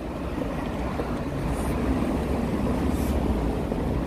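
Steady low rumbling noise with a light hiss above it, growing a little louder about a second in.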